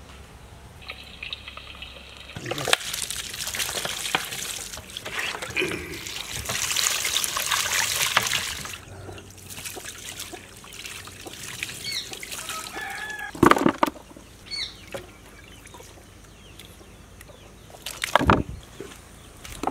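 Water poured from a steel tumbler splashing and trickling over raw mutton pieces in a large steel plate as hands rub and wash the meat. Later, a few sharp thumps and some small bird chirps.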